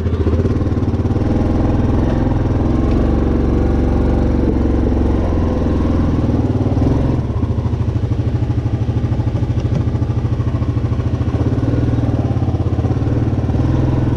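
Four-wheeler (ATV) engine running steadily at low speed. The level drops a little about seven seconds in, and the sound turns more pulsing after that.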